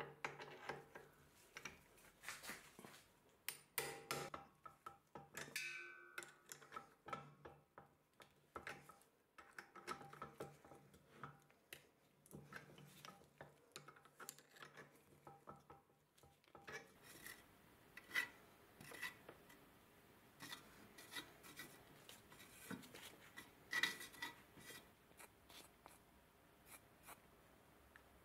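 Quiet close handling of small metal and wood parts: a threaded wooden crank handle being screwed into a cast crank arm, with scraping and small clicks. About two-thirds of the way through, this gives way to softer rubbing as grease-coated churn parts are handled.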